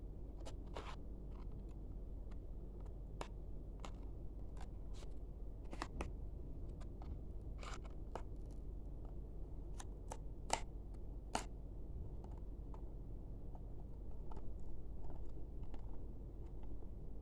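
Scissors cutting open a plastic snack pack, with irregular sharp snips and crinkling clicks over a steady low hum, and two louder snips a little past the middle.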